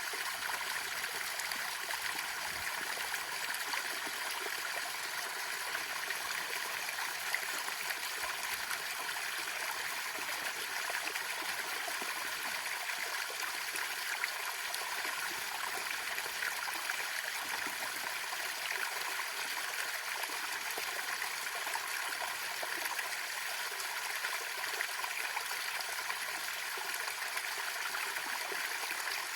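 Small waterfall: water splashing and trickling over rocks in a steady, even rush.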